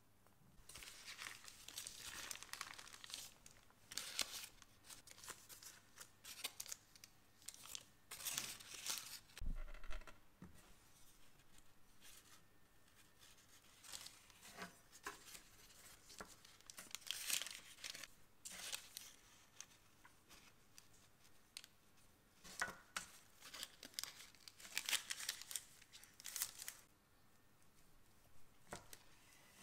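Parchment baking paper crinkling and rustling in short spells as hands press and handle a rolled puff pastry log, then a knife slicing through the layered pastry roll onto the paper-lined tray, a few separate cuts.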